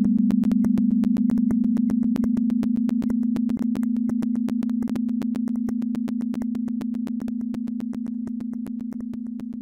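Electronic drone soundtrack: one steady low hum like a dial tone, crossed by an even train of sharp clicks, about five a second, the whole slowly fading out.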